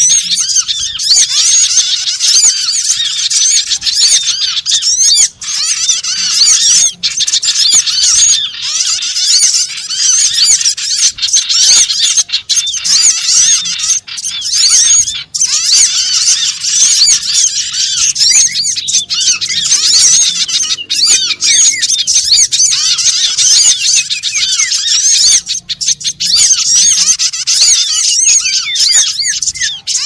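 A crowd of olive-backed sunbirds calling all at once: dense, overlapping high chirps and quick rising-and-falling whistles, a sunbird lure call.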